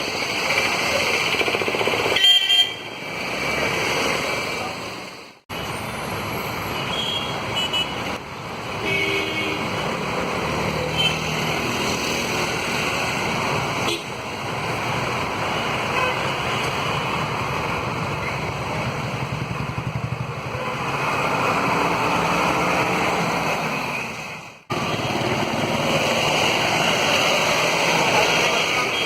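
Road traffic with vehicles passing and several horn toots. The clip is broken by a few abrupt cuts.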